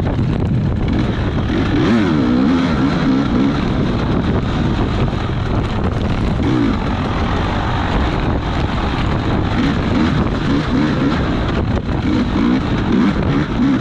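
Small off-road racing engine revving up and down again and again as the vehicle rides the course, with wind rushing over the microphone.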